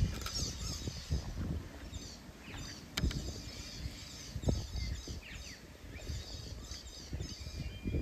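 Small birds chirping repeatedly, over a low, uneven rumble with occasional thumps.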